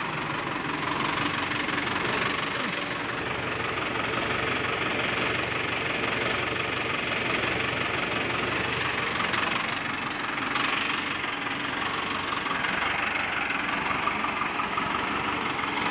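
Mahindra Arjun 555 tractor's diesel engine idling steadily at about 1,000 rpm.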